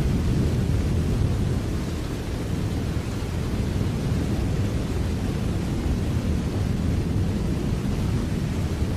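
Steady, even rain noise, a dense hiss over a deep low rumble that stays constant with no separate claps.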